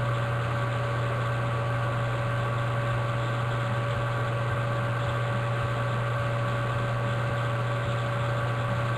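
Steady low electrical hum with a few faint higher steady tones and hiss, unchanging, with no other sounds.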